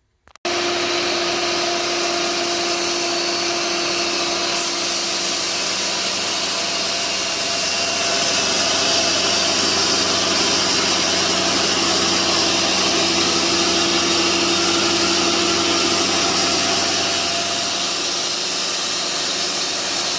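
Cooks AC36 band sawmill running and sawing a log: a loud, steady mechanical whine over a wide hiss, a little louder through the middle, starting and stopping abruptly.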